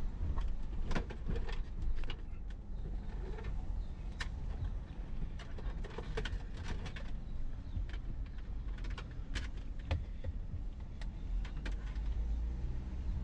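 A car driving slowly, heard from inside the cabin: a steady low engine and road rumble with scattered sharp clicks and rattles at irregular times.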